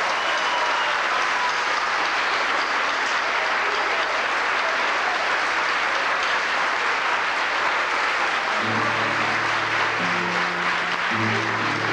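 Audience applauding steadily. About nine seconds in, acoustic guitars begin sounding low notes under the applause.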